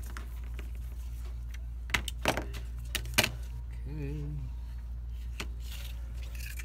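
Light clicks and knocks of a power supply circuit board and small tools being handled on a workbench, a few of them between about two and three seconds in, over a steady low electrical hum. About four seconds in, a short hummed voice.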